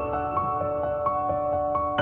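Gentle new-age background music with soft keyboard notes changing every half second or so over sustained tones.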